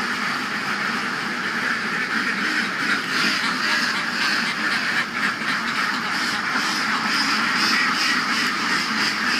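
A large flock of Indian Runner-type laying ducks quacking continuously, with many calls overlapping into a steady chatter.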